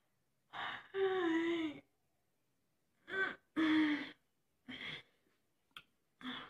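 A young woman yawning and groaning while she stretches: two long yawns with a wavering pitch, about a second in and again near four seconds, each just after a shorter sound, then a few brief sighs.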